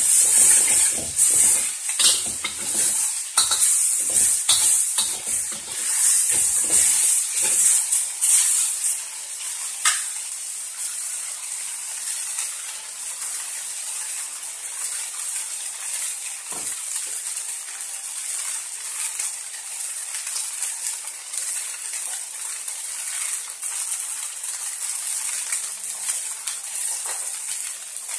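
Stir-frying in a stainless steel wok: a spatula clanks and scrapes against the pan many times over a steady high sizzle. After about eight seconds the clanking stops and the sizzling goes on alone, with an occasional faint clink.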